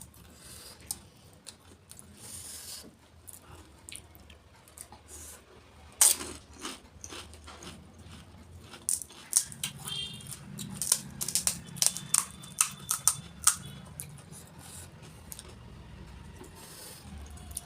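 Close-up eating sounds of golgappa (pani puri): crisp puri shells crunching and cracking, loudest about six seconds in and in a quick run of crackles a little later, with wet chewing in between.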